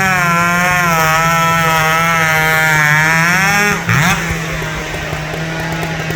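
Racing chainsaw running flat out under load, its high engine note wavering as it cuts, then dropping off abruptly about four seconds in. A lower, steady engine drone carries on after.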